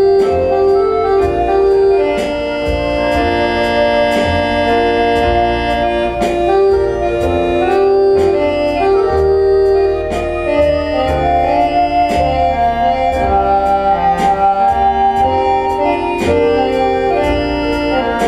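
Recorded instrumental music with sustained organ-like keyboard chords over a moving bass line and a light beat, played back through Gauder Akustik Berlina RC-11 hi-fi loudspeakers.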